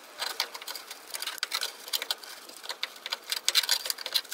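Rapid, irregular clicking and scratching of a tool working over rusty sheet-metal bodywork during clean-up, several sharp ticks a second.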